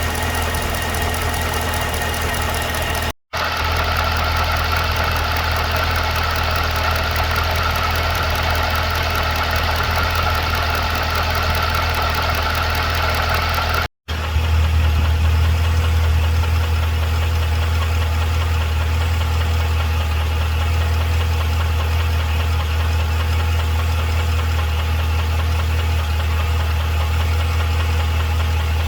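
2012 Cadillac CTS-V's supercharged 6.2-litre V8 idling steadily with a fast, even ticking/knocking from the engine. The sound breaks off for an instant twice, about 3 and 14 seconds in.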